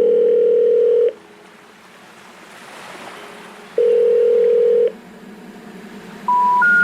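Telephone call tones: two long, steady beeps about a second each, a few seconds apart, then near the end three short tones rising in steps, the pattern of the special information tone that comes before a 'number not reachable' message.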